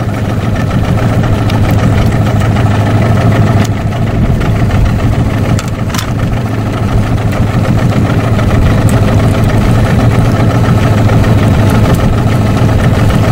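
Small boat's outboard motor running steadily at low speed, a constant deep hum.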